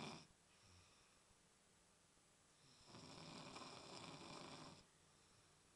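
A drunk man snoring in deep sleep: the tail of one snore right at the start, then after a pause a second rasping snore lasting about two seconds, with quiet breathing between.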